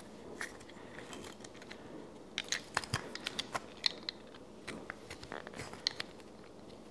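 Light clicks and taps of small 3D-printed plastic parts being handled and pressed into place on a 3D-printed Millennium Falcon model, with a quick flurry of clicks about two and a half to four seconds in and a few more later.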